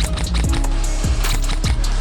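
Background music with a steady beat: a heavy bass drum hitting about twice a second under sustained synth-like tones and quick high percussion ticks.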